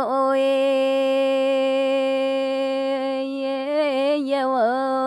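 Unaccompanied solo voice singing Dao páo dung, holding one long steady note with two brief wavering turns in the last second and a half.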